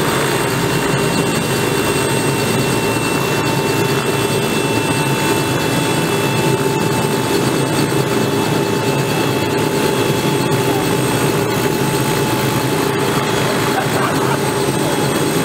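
Robinson R66's Rolls-Royce RR300 turbine engine running steadily on the ground with its rotor turning: an even turbine whine with several fixed high tones over a dense lower drone.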